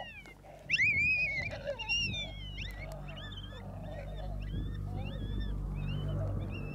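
Coyote vocalizations, a run of high quavering yelps and whining cries that rise and fall, played through a Lucky Duck Revolution electronic predator caller, with a low steady hum underneath.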